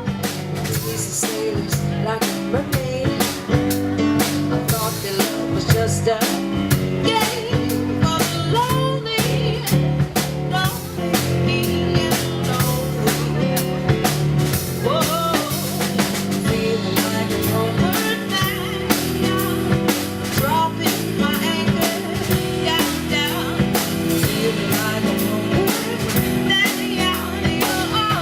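Band music with a drum kit keeping a steady beat under bass and melody.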